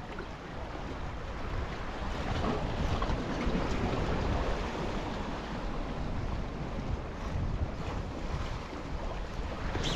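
Ocean surf washing at the shore, with wind rumbling on the microphone.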